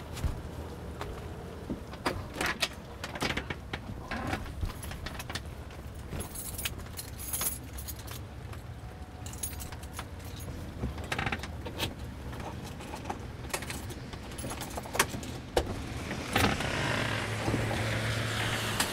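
A bunch of keys jangling and clicking against a door handle and lock in many small metallic rattles as a front door is unlocked. Near the end a steady rush of noise comes in.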